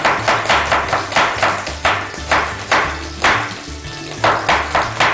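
Kitchen knife chopping onion on a wooden cutting board: a run of sharp, irregular knocks, about two to three a second, over background music with a bass line.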